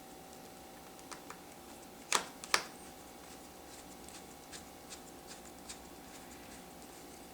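Small plastic clicks and ticks from the laptop's screen bezel being pressed and snapped into place, with two louder snaps about two seconds in, over a faint steady hum.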